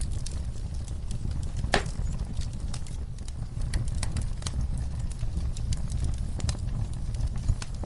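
Wood fire in a fireplace crackling: irregular sharp pops and snaps over a steady low rumble of the flames, with one louder pop about two seconds in.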